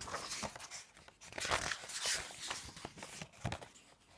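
Paper pages of a paperback colouring book being turned and handled, rustling in several short swishes.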